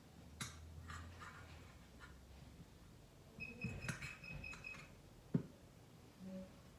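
Light handling clicks, then a quick run of short, high electronic beeps lasting about a second and a half, followed by one sharp click.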